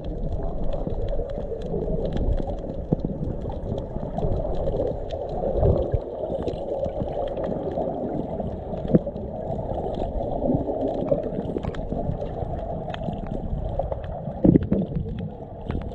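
Muffled underwater water noise picked up by a submerged camera: a steady dull rushing and gurgling, with scattered small clicks and a louder burst about fourteen and a half seconds in.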